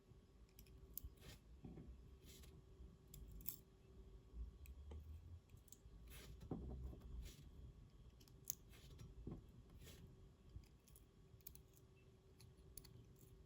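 Faint, irregular small metallic clicks and ticks as tiny lock pins and springs are handled and dropped into the pin chambers of an Assa Twin 6000 lock cylinder during reassembly.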